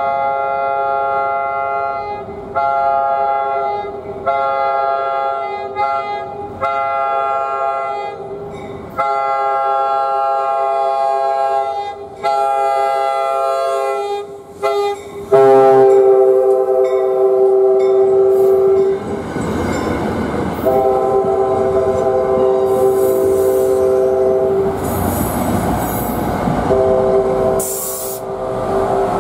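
A commuter train's five-chime horn, a Nathan K5LA on the leading Comet V cab car, sounds a long run of blasts, some short and some held a few seconds, warning for the grade crossing as it approaches. Then the train rumbles past with two more horn blasts and some high wheel squeal near the end.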